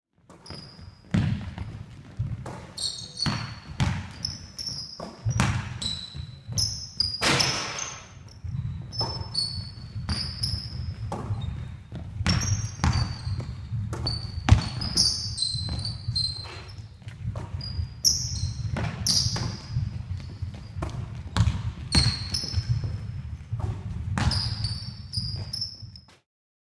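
Basketball bouncing again and again on a hard sports-hall floor at an uneven pace, with short high squeaks of shoes on the court, echoing in a large hall.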